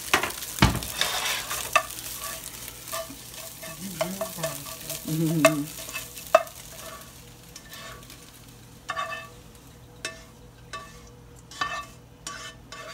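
Scrambled eggs sizzling in a nonstick wok while a slotted spatula stirs and scrapes them, with clicks and knocks of the spatula against the pan. The sizzle thins out over the second half, leaving mostly scraping and tapping as the eggs are pushed out of the pan.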